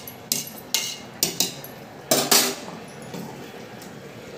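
Metal slotted spoon clinking against a stainless steel cooking pot, a handful of sharp clinks in the first two and a half seconds, the loudest about two seconds in.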